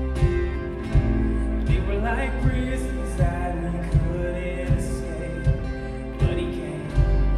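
Live church worship band playing a slow song: a kick drum on a steady beat about every three-quarters of a second under sustained bass guitar, keys and guitar chords, heard as the room sound.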